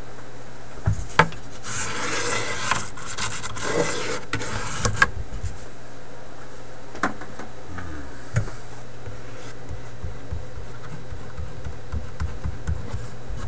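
Rubbing and scraping on the paper lining of a wooden record-player cabinet as a loose piece is worked back down. The scraping comes in a dense stretch of a few seconds, mixed with sharp clicks and knocks, and is followed by a few scattered light taps.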